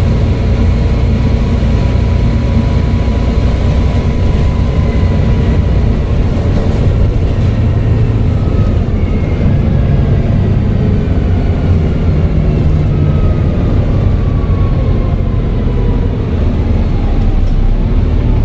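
Volvo B7TL double-decker bus's turbocharged diesel engine running under way with a heavy low rumble and a high turbo whistle. The whistle holds steady at first, then a higher whistle comes in about halfway and falls slowly in pitch.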